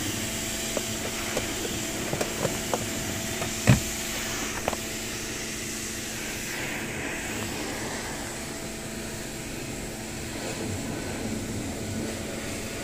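A handful of sharp plastic clicks and one louder knock, all in the first five seconds, as wiring-harness connectors are unplugged and a car's body control module is worked out from under the dashboard. A steady hum runs underneath throughout.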